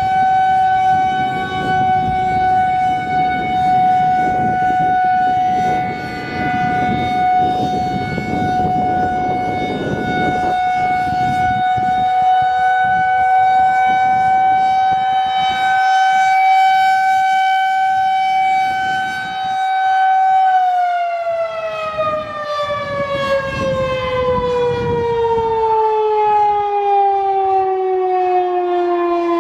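Federal Signal 2001-130 electromechanical outdoor warning siren holding a steady alert tone, then about twenty seconds in starting to wind down, its pitch falling steadily as the one-minute alert ends. Wind rumbles on the microphone, heaviest in the first ten seconds.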